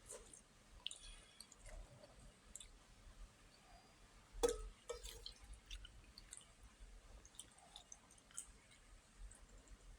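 Quiet eating sounds: soft wet mouth and chewing noises with scattered small clicks, and one sharper click about four and a half seconds in.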